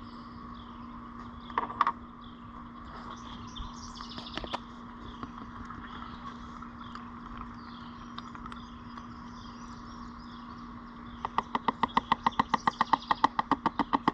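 Birds chirping steadily over a low hum, with a few single knocks early on. Near the end comes a rapid, even run of sharp clicks, about seven a second for some three seconds.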